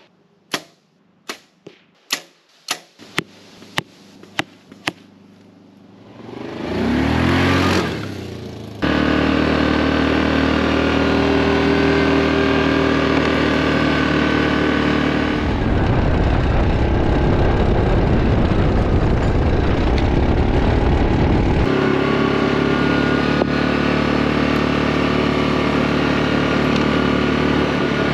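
A run of about ten sharp ticks and then a rising swell of noise give way abruptly to a Yamaha Grizzly 700 ATV's single-cylinder engine running at a steady speed. A heavy low rumble joins in for several seconds in the middle.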